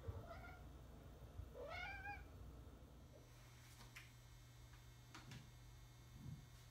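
Tuxedo cat meowing twice, the second meow rising in pitch; a few faint ticks follow.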